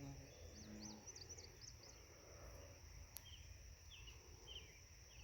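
Faint lakeside ambience: small birds chirping in short repeated calls, with a flurry of quick higher chirps about a second in, over a steady high insect drone and low wind rumble. A single faint click about three seconds in.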